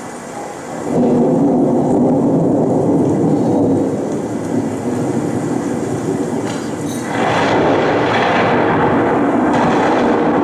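Loud, steady noise soundscape played over the performance's speakers from a laptop. It swells about a second in and turns brighter and hissier about seven seconds in.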